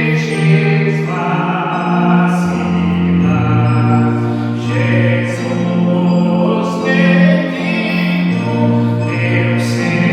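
Slow gospel music with long held chords over a bass line that changes every couple of seconds.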